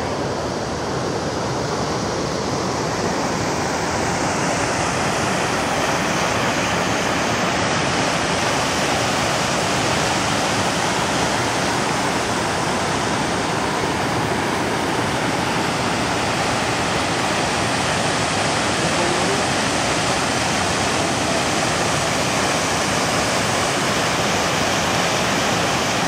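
Rushing water of river rapids pouring between boulders: a steady, unbroken rush that grows a little louder over the first few seconds.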